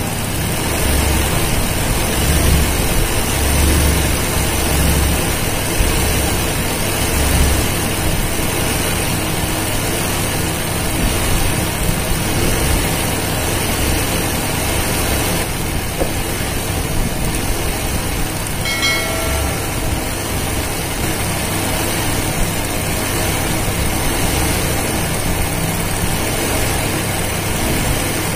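Electric embroidery sewing machine running steadily, its needle stitching rapidly through the fabric, with a steady low motor hum.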